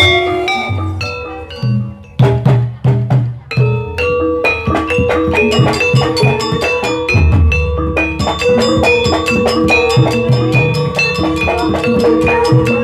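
Traditional Javanese ensemble music accompanying an ebeg horse dance: tuned struck bars and drums. A few loud drum strokes come about two seconds in, then from about four seconds a quick, steady rhythm of struck notes over a held ringing tone.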